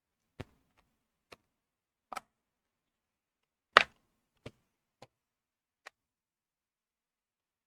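Seven separate sharp clicks and knocks, under a second to about a second and a half apart, from handling a hair straightener's plastic parts and small tools; the loudest comes a little under four seconds in.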